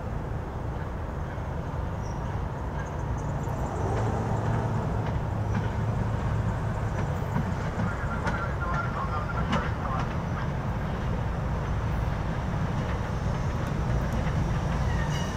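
SEPTA Silverliner electric multiple-unit train approaching: a steady low hum that slowly grows louder, with faint high squeals and clicks about halfway through.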